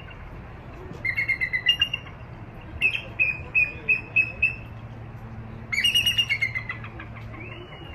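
Bald eagle calling: three bursts of rapid, high-pitched chattering notes, the middle one a run of evenly spaced piping notes.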